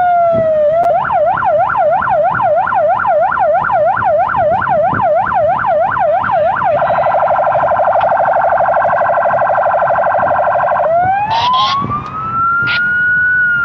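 Police patrol car siren cycling through its tones: a slow falling wail, then a fast yelp of about three rising-and-falling sweeps a second for about six seconds, then a very rapid warble for about four seconds, then a slow wail rising again near the end.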